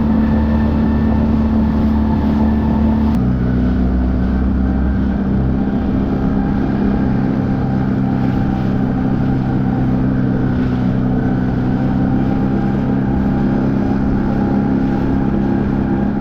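Outboard motor of a small inflatable boat running steadily at speed, with a steady drone throughout and a sudden slight drop in pitch about three seconds in.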